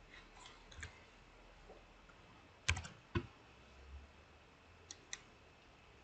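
Sparse keystrokes on a computer keyboard: a light tap near the start, two louder keystrokes about half a second apart in the middle, and two quick soft clicks near the end, with faint room noise between.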